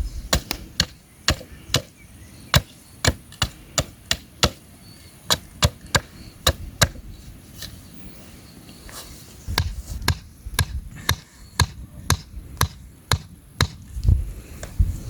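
Sharp, regular chopping strokes, about two a second, pausing for a couple of seconds midway and then resuming faster with some duller thuds.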